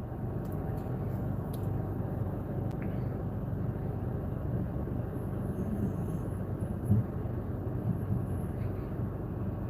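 Steady low rumble of a vehicle heard from inside it, with a brief thump about seven seconds in.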